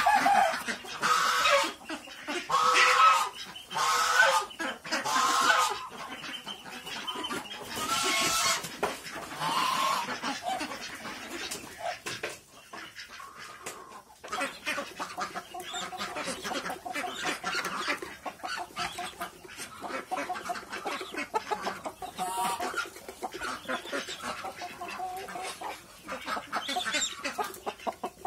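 Flock of domestic poultry calling while feeding. In the first ten seconds or so come loud, harsh calls one after another; after that the calls turn quieter, shorter and more rapid, a steady chatter.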